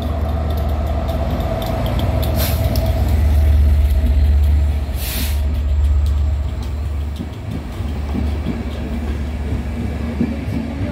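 British Rail Class 67 diesel locomotive, with its two-stroke V12 engine, passing under power with a low rumble that is loudest about four seconds in and then fades. A short hiss comes about five seconds in. Its passenger coaches follow, their wheels rattling over the track.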